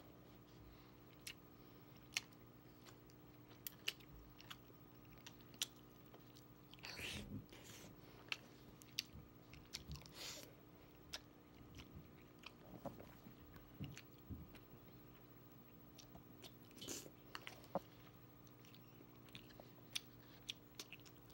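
A person chewing a buffalo-seasoned chicken and mac and cheese meal close to the microphone: soft mouth clicks and smacks scattered throughout, with a few short louder hissing sounds, over a faint steady hum.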